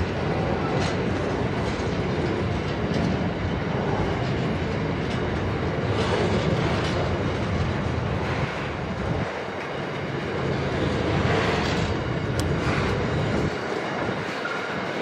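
Freight train wagons rolling past with a steady rumble and the clickety-clack of wheels over rail joints. The deep rumble thins out near the end as the train's tail nears.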